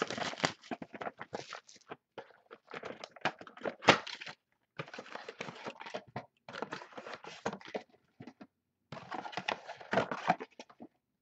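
Trading-card pack packaging being torn open and handled: crinkling wrapper and cardboard crackling in irregular bursts, with a sharp snap about four seconds in and two short pauses.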